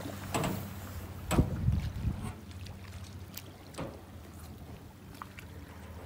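Water lapping and slapping against a small boat's hull in irregular splashes, the loudest about a second and a half in, over a low steady hum.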